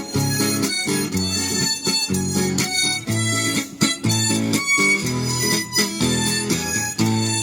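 Harmonica playing a melody over guitar accompaniment, the two blending together.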